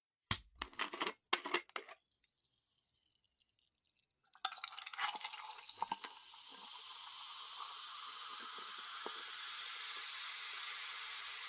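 A sharp click and a few short bursts of hiss, then a gap; then soda is poured, splashing briefly before settling into a steady fizz of carbonation bubbles that grows slightly louder.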